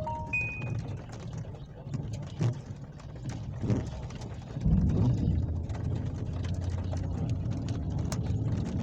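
Thunderstorm: steady rain hiss with scattered crackles, then a loud low rumble of thunder breaking about halfway through and rolling on to the end.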